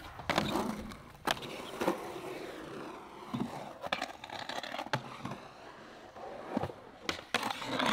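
Skateboard wheels rolling on concrete, broken by several sharp clacks of the board popping and landing tricks.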